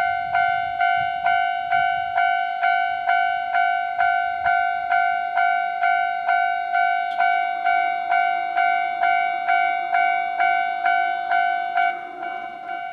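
Japanese railway level-crossing warning bell ringing a steady, rapid alternating 'kan-kan', a little over two strikes a second, signalling that a train is approaching. Near the end its level drops.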